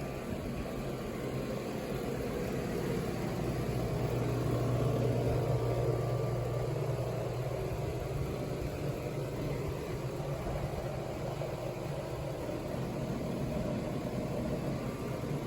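Steady low mechanical hum, growing a little louder about four seconds in and easing off again a few seconds later.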